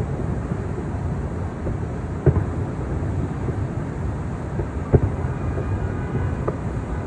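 Distant fireworks shells bursting: three dull booms a second or two apart, the loudest about five seconds in, over a steady low rumble.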